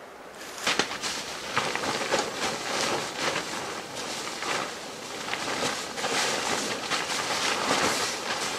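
Camping gear being handled and laid out on a groundsheet: an irregular run of rustles, scuffs and crinkles of fabric and bags.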